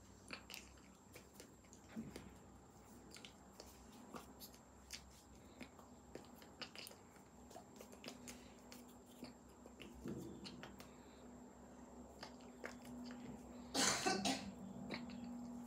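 Faint scattered clicks and rustles from a person signing without voice: small mouth and lip noises and hands moving, with one brief louder rustling burst near the end and a faint steady hum behind.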